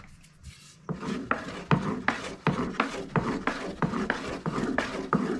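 Wooden rolling pin knocking and rolling on a wooden board as yufka dough is rolled out and turned. The knocks start about a second in and run at about three a second.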